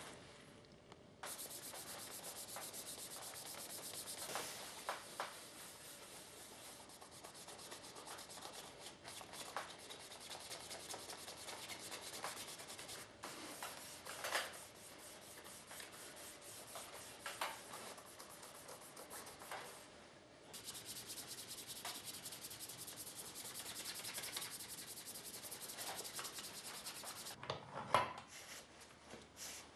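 A blue pad rubbed quickly back and forth over a leather shoe sole and its edge, making a steady scratchy hiss of rapid strokes. The rubbing breaks off briefly twice and stops near the end, and a single sharp knock follows.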